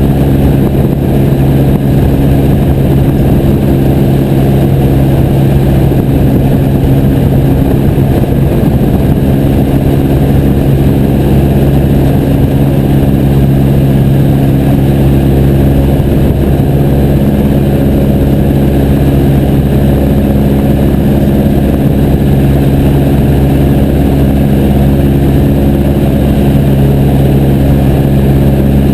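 Piper J3 Cub's engine and propeller running steadily at constant power, a loud unbroken drone.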